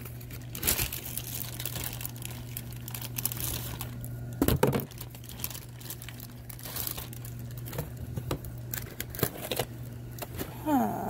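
Plastic packaging wrap crinkling and rustling as products are handled and set down in a cardboard box, with one louder thump about four and a half seconds in.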